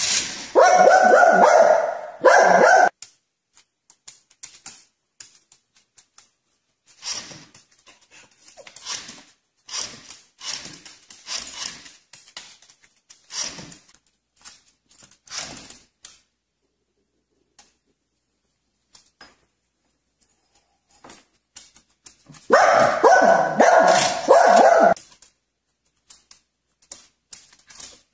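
A small dog barking in two rapid, loud bouts, one at the start and one near the end, with quieter short sounds in between.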